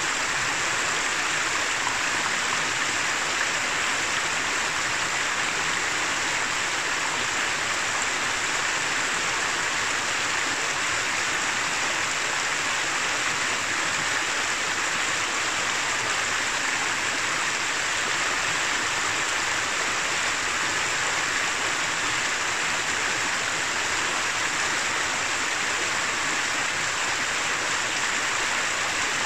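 Shallow mountain river running over rocks and stones: a steady rush and babble of water with no change in level.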